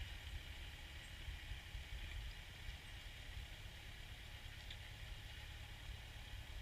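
Ford farm tractor engine running faintly: a low, steady rumble.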